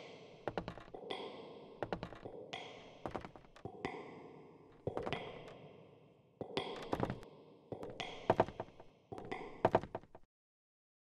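Sharp knocks and taps with a short ringing tail, coming in small clusters about once a second and stopping about a second before the end.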